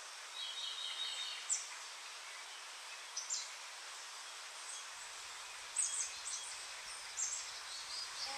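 Faint small birds chirping in short, high calls, with a brief trill about half a second in, over a steady hiss.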